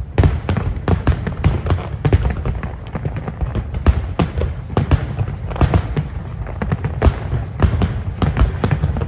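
Aerial firework shells bursting in a dense, continuous barrage: several sharp bangs a second over a steady low rumble.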